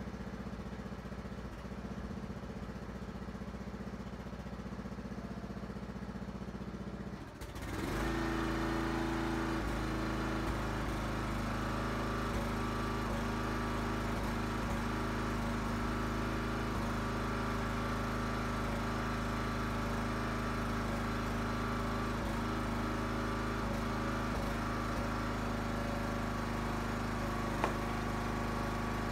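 Huskee 35-ton log splitter's gas engine running steadily. About seven seconds in it gets louder and fuller, then runs on steady, with one small knock near the end.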